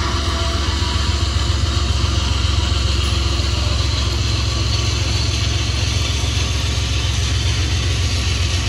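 Diesel locomotive engine running steadily, a loud low rumble with an even mechanical hiss above it.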